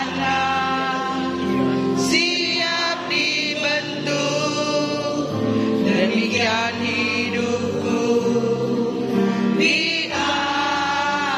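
Choir singing a Christian worship song over sustained instrumental accompaniment.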